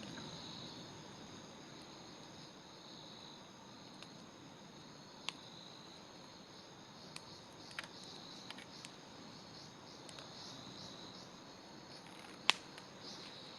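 Wood campfire crackling, with a few sharp pops, the loudest near the end. Under it runs a steady high-pitched chirring of night insects.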